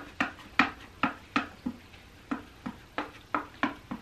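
Paint being mixed on a real plate used as a palette: a run of short clicking taps, about three a second and unevenly spaced, as the mixing tool strikes the plate.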